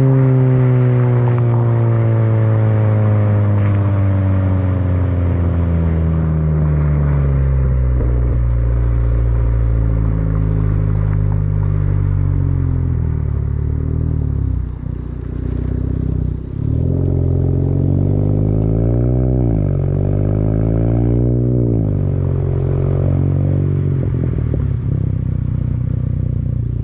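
Volkswagen Touran 1.4 TSI four-cylinder petrol engine heard at the tailpipes through a 60 mm straight-through full exhaust while driving. The revs fall steadily for the first several seconds and settle into a low steady drone. Around the middle they dip briefly twice, then rise and fall again.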